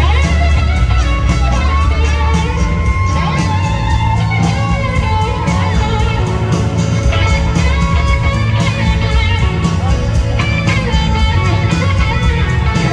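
Live rock band playing, with an electric slide guitar solo on a Gibson SG standing out on top; its notes glide and waver between pitches over the band's bass and drums.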